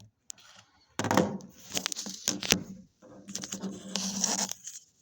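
Rustling and handling noise in two stretches, with a few sharp knocks between them.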